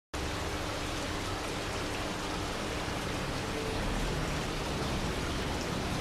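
Tenaya sphere water fountain of glass-reinforced cement running, its water welling from the top of the ball and splashing down into the basin in a steady, even patter.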